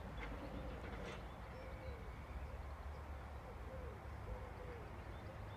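A dove cooing: a slow series of soft, low notes, some with a slight bend in pitch, over a low steady rumble.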